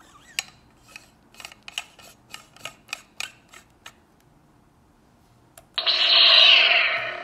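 Sharp clicks and taps as the metal lightsaber hilt sections are threaded and fitted together. About six seconds in, the saber's Proffie sound board plays a loud electronic lightsaber sound that starts suddenly, swells, then settles into a steady hum.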